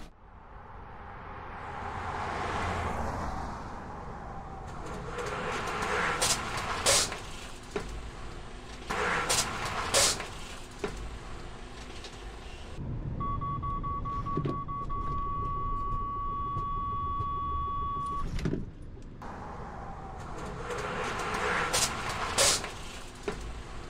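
Road noise from a heavy truck and cars driving on a test track, with scattered sharp clicks and knocks. Partway through, a steady high warning tone sounds for about five seconds, typical of a truck's collision-warning alert, then the vehicle noise returns.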